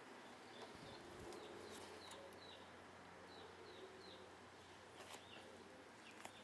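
Near silence with faint, short chirps, several a second through the middle, typical of a small bird, and a few light clicks.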